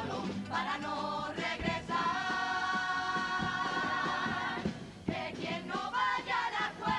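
Carnival comparsa choir singing in harmony with instrumental accompaniment. It holds one long chord in the middle, dips briefly about five seconds in, then picks up the singing again.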